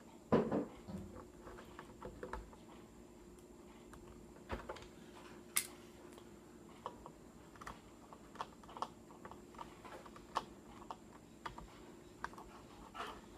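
Small precision screwdriver clicking and ticking against a laptop's plastic screen bezel as tiny screws are backed out: scattered light clicks, with a sharper knock near the start.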